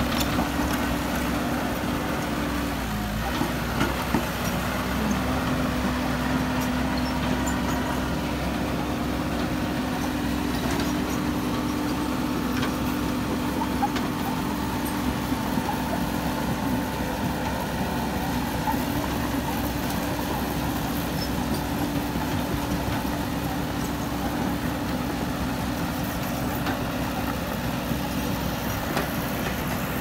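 Caterpillar E120B hydraulic excavator's diesel engine running steadily as the machine works, its hum dipping briefly in pitch about three seconds in.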